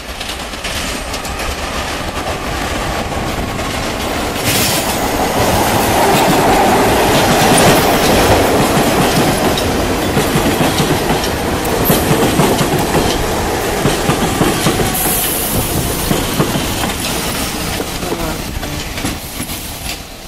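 Vintage New York City subway museum train pulling into a station, its wheels clattering over rail joints and switches. It grows louder as the cars pass close, then eases off as the train slows near the end.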